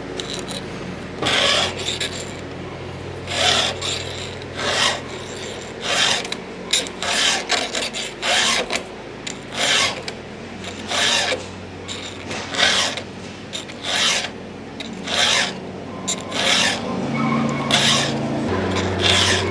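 Chainsaw file rasping by hand across the cutting teeth of a STIHL MS462 saw chain, about one stroke a second at an uneven pace. The teeth were ground dull against a rock, so each one takes many strokes to reach clean, sharp metal.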